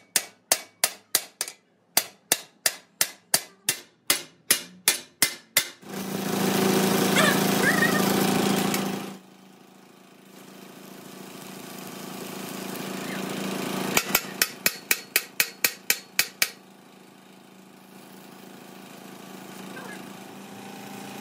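Hammer striking metal in quick, even blows, about four a second, in a run of about six seconds and a shorter run about two-thirds of the way in. Between them a loud steady machine noise with a low hum lasts about three seconds, then a fainter steady noise slowly grows louder.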